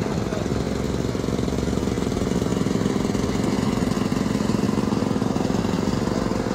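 An engine running steadily with a rapid low chugging, holding the same speed throughout.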